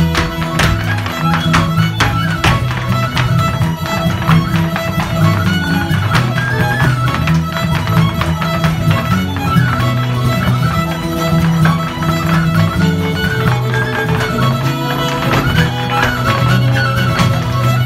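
Live Irish traditional music: a fiddle playing a lively tune over guitar accompaniment, with the sharp taps of step-dancers' shoes and brooms striking the stage.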